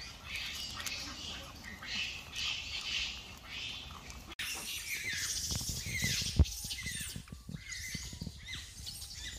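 Short high-pitched animal squeaks that fall in pitch, several in a row, with a few soft low knocks and one sharp click. They follow a pulsing high hiss that breaks off abruptly about four seconds in.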